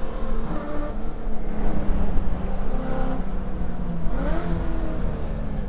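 Holden Commodore VK's 308 V8 engine running hard on track, heard from inside the cabin. Its pitch shifts with the throttle and climbs about four seconds in.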